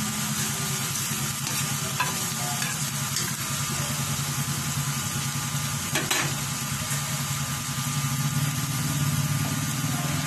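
Ground meat sizzling in hot oil in a metal frying pan, with a spatula stirring it and clicking against the pan a few times. A steady low hum runs underneath.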